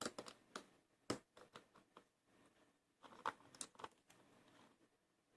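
Faint, scattered small metallic clicks and taps of a lock cylinder and picking tools being handled, in a few quick clusters.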